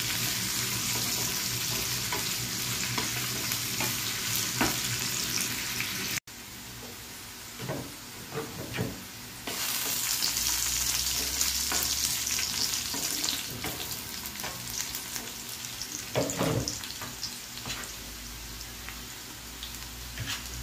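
Sliced onions sizzling in hot oil in a nonstick wok as they fry toward brown, stirred with a wooden spatula that scrapes and knocks against the pan now and then. The sizzle cuts off suddenly about six seconds in, comes back strongly a few seconds later, then eases off.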